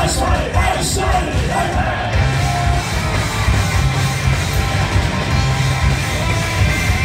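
Punk rock band playing loud and live: distorted electric guitars, bass and drums, with shouted vocals over the first two seconds, then the band alone.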